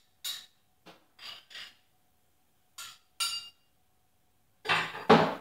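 Short clinks and scrapes of a metal utensil on a container and a frying pan, several brief taps spread out, with a louder double knock near the end.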